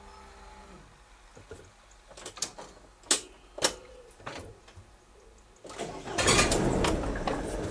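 Level-crossing barrier mechanism humming, stopping about a second in as the barrier arms reach upright. A few sharp clicks follow, and about six seconds in a car engine starts and keeps running.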